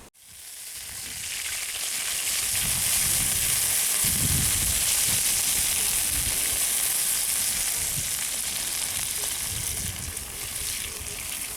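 Gammon sizzling in a frying pan: a steady hiss that builds up over the first couple of seconds and then holds.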